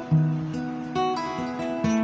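Acoustic guitar with a capo, played fingerstyle: plucked bass and melody notes ringing over each other, with a firm bass note just after the start and fresh plucks about a second in and near the end.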